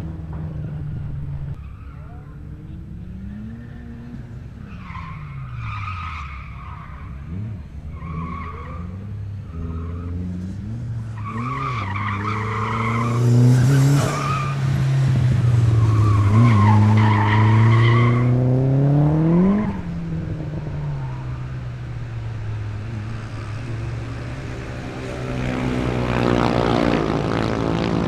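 AWD Dodge Colt's 4G63 four-cylinder engine revving up and dropping back again and again as it is driven hard through an autocross course, with the tyres squealing in several spells through the middle. The squeal is loudest around the middle.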